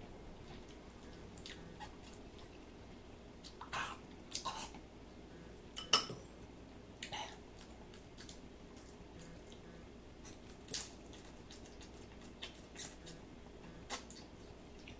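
A person slurping ramen noodles off a fork: several short slurps a second or a few seconds apart, with one sharp click about six seconds in.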